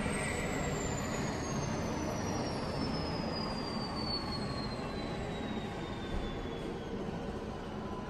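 Airbus H135 air ambulance helicopter's twin turbines and rotor winding down on the helipad after landing: a steady rushing noise with a high whine that falls slowly and evenly in pitch.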